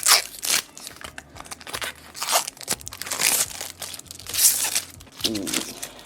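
Plastic protective wrapping being peeled off a keyboard and crumpled, in a few irregular crinkling, tearing bursts.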